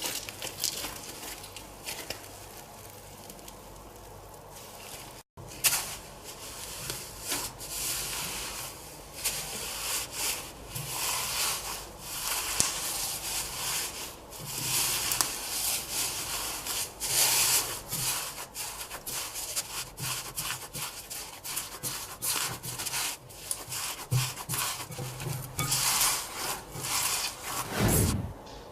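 Home-made borax-free slime being worked by hand or utensil: irregular rubbing and squishing strokes, with a brief dropout about five seconds in and a low thump near the end.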